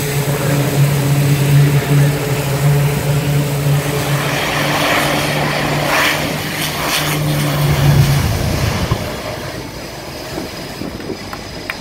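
Turbine-powered military aircraft droning close by with a steady hum, wind buffeting the microphone midway through; the drone fades away about eight seconds in.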